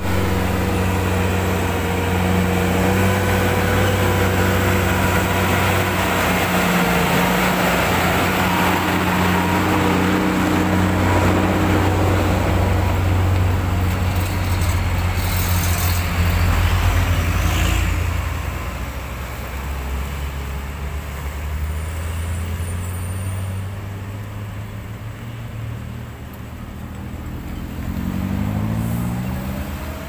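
Heavy diesel truck engine running loudly close by, with a steady low hum whose pitch drifts slowly down. It drops away about eighteen seconds in, leaving quieter road traffic. Near the end another engine rises in pitch as it comes closer.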